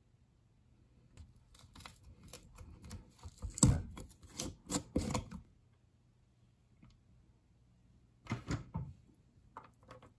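Irregular clicks and knocks of food being handled: a mustard squeeze bottle and a fork scooping sauerkraut from a plastic jar. The clicks are loudest about three and a half seconds in, go quiet, and come back as a short cluster near the eight-second mark.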